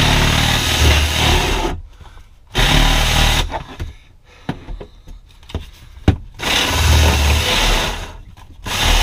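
Cordless drill driving a Forstner bit into a wooden board, boring the start holes for a notch. The motor runs in several spells of a second or two, with short pauses and small knocks between them.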